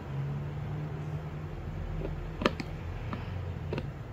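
Needle-nose pliers tips ticking against an LED lamp's circuit board: one sharp click about two and a half seconds in and a couple of fainter ticks, over a low steady hum.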